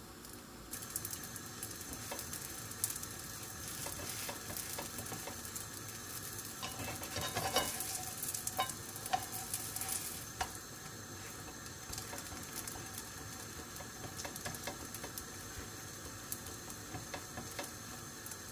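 Stuffed brick-pastry square frying in a butter-and-oil mix in a nonstick pan, with a steady sizzle. Midway through there are a few scrapes and knocks from a spatula as the pastry is flipped and pressed down.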